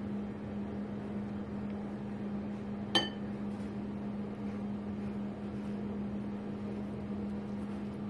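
Steady low mechanical hum, as of a kitchen appliance running, with a single ringing clink of a utensil against a dish about three seconds in.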